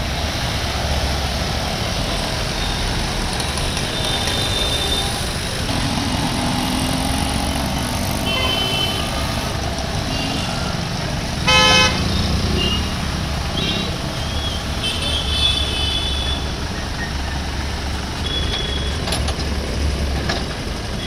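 Road traffic: a steady low engine rumble, with one short vehicle horn honk about halfway through, the loudest sound. A few fainter short high toots come here and there.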